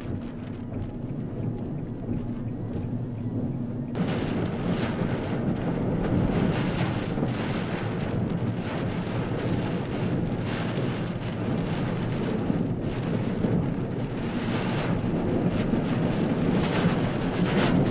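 Typhoon Hagibis's wind and driving rain buffeting the microphone. The noise jumps louder about four seconds in, then rises and falls in gusts.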